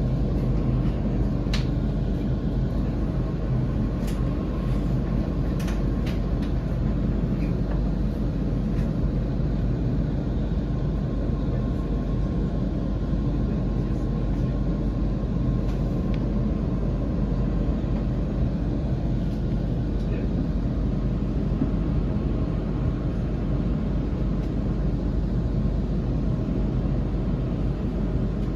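Onboard running noise of a Sydney Trains electric suburban train travelling between stations: a steady rumble of wheels on rail, with a few sharp clicks in the first six seconds.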